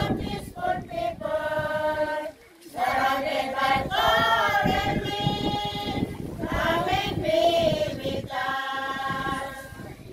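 A group of women and children singing together unaccompanied, in long held notes, with a brief break between phrases about two seconds in.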